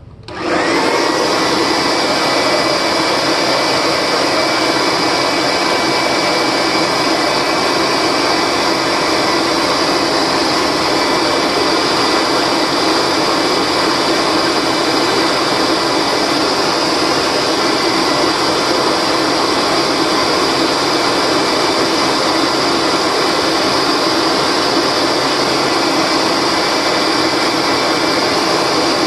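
Kirby Diamond Edition upright vacuum switched on, its motor spinning up within the first second and then running steadily, blowing its exhaust out of the fill tube at about 180 CFM.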